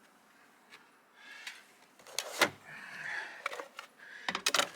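Plastic heat pump line-set cover being pressed onto its track: light scraping, then several sharp plastic clicks, the loudest about halfway through and a quick run of clicks near the end.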